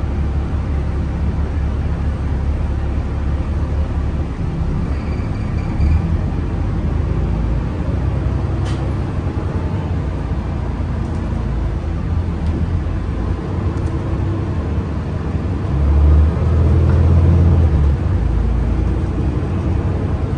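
Road traffic rumbling steadily, growing louder about three-quarters of the way through as a vehicle passes close by.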